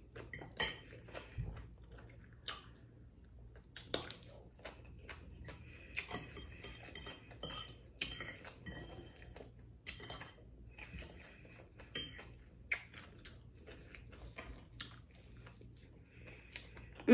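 A fork clicking and scraping on a plate in scattered irregular taps, with the close, quiet sounds of someone chewing a mouthful of fried fish.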